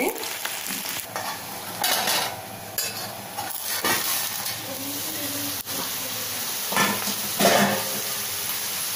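Raw banana slices sizzling in oil in a non-stick pan, with several short scrapes and clatters of a metal spoon and a steel plate being set over the pan as a lid.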